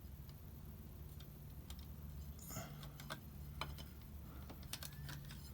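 Faint clicks and light clinks of motorcycle clutch plates being lifted out of the clutch basket, with a short scrape about two and a half seconds in and a few sharper clicks near the end. A low steady hum runs underneath.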